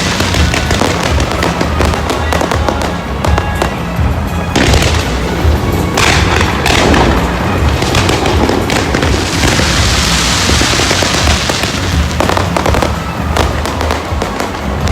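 Fireworks display: a loud, dense run of bursts and crackling, over music with a pulsing bass.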